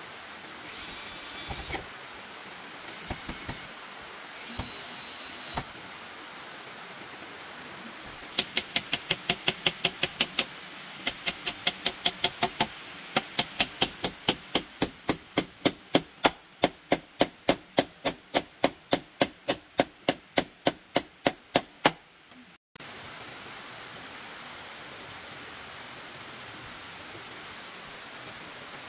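Sharp, evenly spaced knocking, three to four strikes a second, in three runs separated by short pauses, which stops abruptly; a steady hiss follows.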